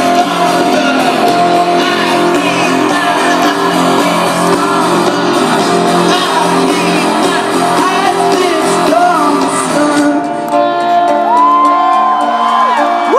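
Live rock band playing loudly over a concert sound system, with voices singing and shouting. About ten seconds in the drums and bass drop out, leaving held chords and a long sung note that glides up and down.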